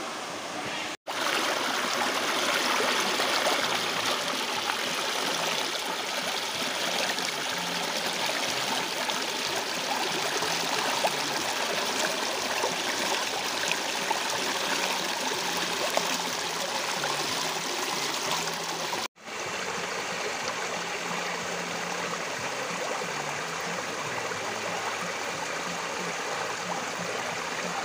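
Shallow stream water rushing and splashing over rocks in small cascades, a steady rush that cuts out for an instant twice, about a second in and again about two-thirds of the way through.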